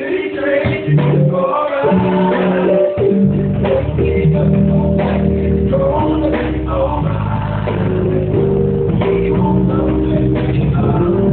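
Live R&B band music: sustained keyboard chords, with bass coming in about three seconds in, and a voice singing.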